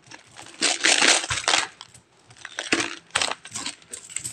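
Philippine peso coins clinking and clattering in uneven bursts as they are shaken out through the small hole of a piggy bank and raked together by hand on a cloth-covered table.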